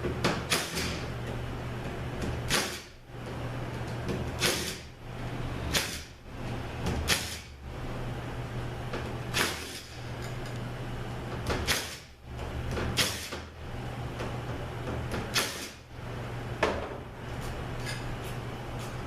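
T25 Torx bolts being unscrewed from a Chrysler 904 transmission valve body with a hand tool: a string of short metallic clicks and scrapes, about one every second or two, over a steady low hum.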